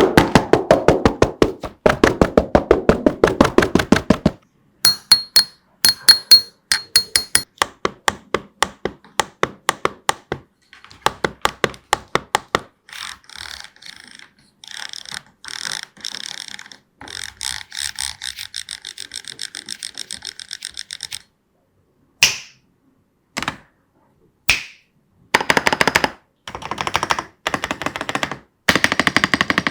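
Typing on an Ajazz AK820 Pro V2 mechanical keyboard: fast runs of key clacks in bursts of a few seconds with short pauses between them, and a few single keystrokes just past the middle.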